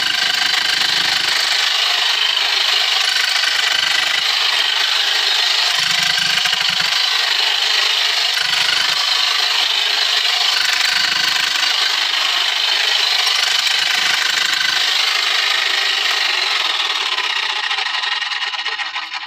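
Corded electric rotary hammer breaking rock, running steadily with a high motor whine. A deeper rumble comes and goes every two seconds or so as the bit bites. It winds down near the end.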